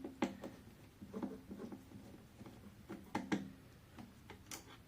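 Phillips screwdriver working out the small screws that hold an air fryer's door limit switch: faint, scattered clicks and ticks.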